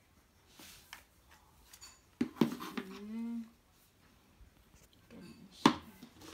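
Hard black rack parts and pegs knocking and clicking as they are handled and fitted together, a few sharp knocks with quiet gaps between. A short hummed vocal sound comes about three seconds in.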